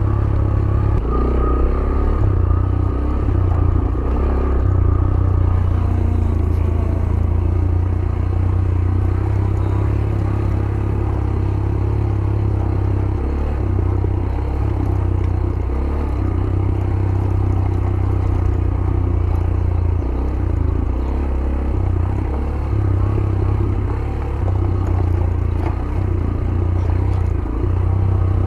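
Yamaha YBR 125G's single-cylinder four-stroke engine running with a steady low rumble while the bike clatters and rattles over a rough dirt track.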